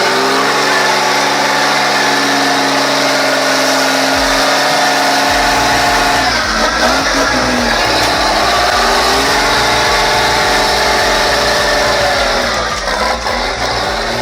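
A vehicle engine running steadily, its pitch dipping and climbing back twice as it is revved or loaded.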